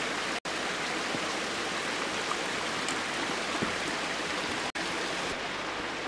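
Steady rush of a mountain stream running over rocks, the sound cutting out for an instant twice.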